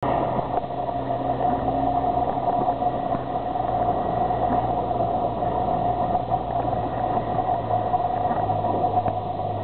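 A boat's engine idling with a steady hum that holds even throughout.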